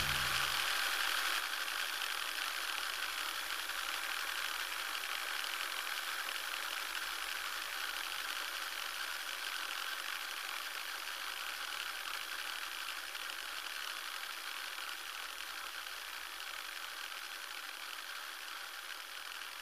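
Steady, faint hiss with no music or voices, slowly fading away.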